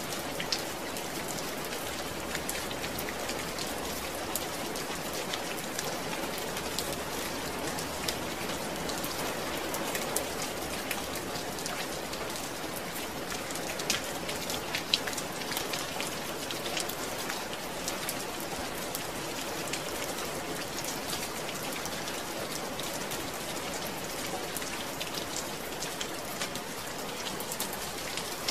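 Steady rain falling, with many individual drops ticking sharply on a surface over a continuous hiss, a few louder drops standing out here and there.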